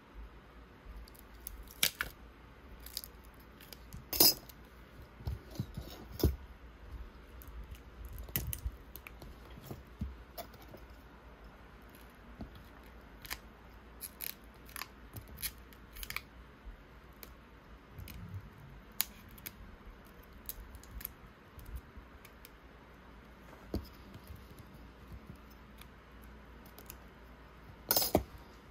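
Small repair tools clicking, tapping and scraping on an iPhone X during a battery replacement, in scattered irregular clicks, with a sharp click about four seconds in and a louder cluster of clicks near the end.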